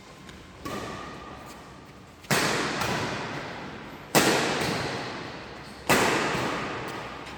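Badminton rackets striking a shuttlecock in a rally, four sharp hits about one and three-quarter seconds apart, each ringing out with long hall reverberation. The first hit is quieter than the three after it.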